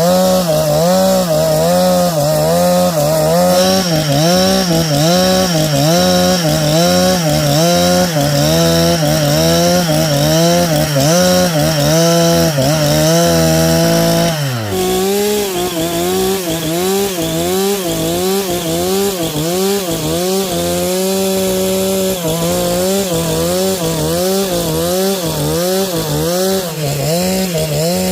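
Two-stroke chainsaw running under load, ripping a log lengthwise into boards, its engine pitch wavering up and down in a steady rhythm. About halfway through the pitch drops sharply, then the saw picks up and keeps cutting.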